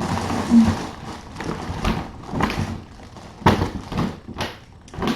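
Objects being handled and moved about: irregular rustling with light knocks and clicks.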